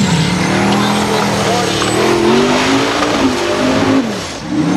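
Formula Offroad hill-climb buggy's engine revving hard as it claws up a steep dirt slope, the pitch rising and falling with the throttle. Near the end the revs drop sharply and climb straight back up.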